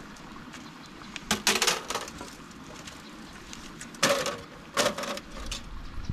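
Dry sticks of firewood clattering and knocking together as they are handled and dropped onto a pile: a quick run of knocks about a second in, then two sharper knocks later on.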